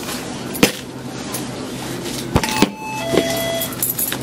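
A few sharp clicks of coins and small items set down on a shop countertop, with two short beeps about two and three seconds in, over a steady low hum.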